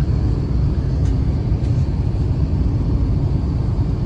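Steady rumble of an Airbus A350-900's cabin noise during descent, engine and airflow noise heard from a passenger seat, with a faint high steady tone over it.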